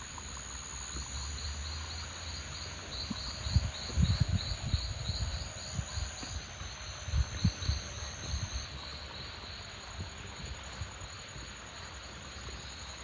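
Insects calling steadily: a fast, even pulsing chirp and a thin, high continuous whine, over a background hiss. Low thumps and rumbles come and go in the middle.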